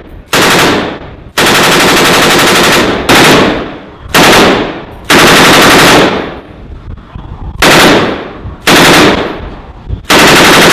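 Belt-fed machine gun firing about seven bursts of rapid shots, most short and one about a second and a half long, each tailing off before the next.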